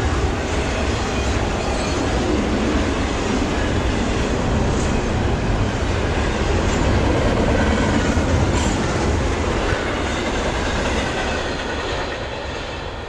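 Cars of a Norfolk Southern intermodal freight train, trailers on flatcars and double-stack container wells, rolling past on the rails: a steady rumble with clickety-clack of the wheels, fading near the end.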